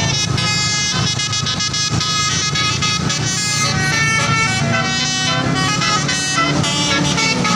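Bus telolet horn playing a quick multi-note melody, the notes changing every fraction of a second, over a steady low rumble of the bus running.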